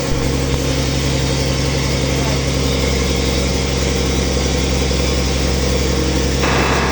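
Backhoe's diesel engine running steadily with a low, even drone; near the end a higher-pitched noise joins it.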